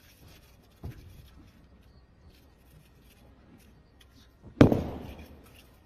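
Wushu athlete's feet striking the competition carpet: a lighter thud about a second in, then a loud heavy thud near the end as he lands from a jump, its echo trailing off through the hall.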